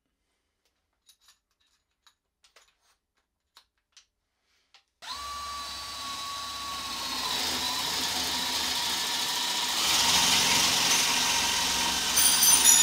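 DeWalt DCD999 cordless drill in drill mode, first gear, boring a 25 mm spade bit into a softwood beam. Near silence with a few faint clicks for the first five seconds, then the drill starts with a steady motor whine and the rasp of the bit cutting wood, growing louder about five seconds later as the bit goes deeper.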